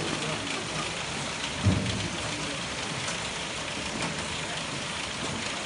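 Apple grading machine running with apples on its conveyors: a steady, noisy rattle of the machine and the rolling fruit, with one low thump about a second and a half in.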